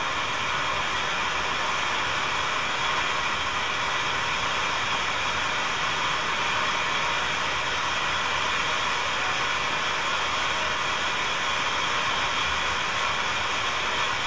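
Steady rush of a small mountain waterfall and stream, an even hiss that holds at one level.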